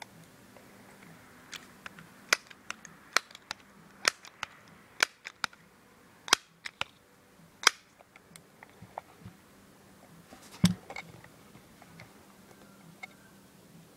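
Crosman 1377 air pistol being handled: a run of sharp mechanical clicks and clacks about one a second, then a louder knock with a low thud about ten and a half seconds in.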